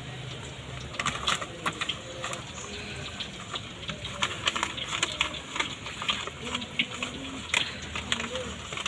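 Brown paper food wrap crinkling and rustling as it is folded by hand, with many irregular sharp crackles.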